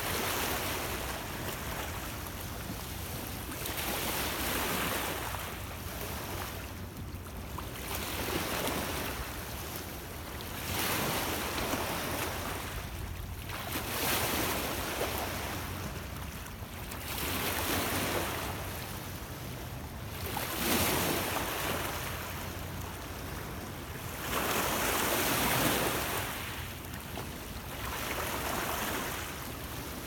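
Small Lake Ontario waves washing in over a rocky, stony shore, each wash swelling and fading every few seconds, over a steady low rumble of wind.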